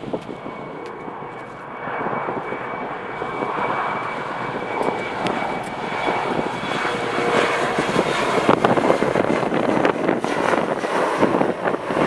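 Jet airliner's engines, a loud roar building as the aircraft passes, with a steady high whine in the first half. Gusting wind buffets the microphone throughout.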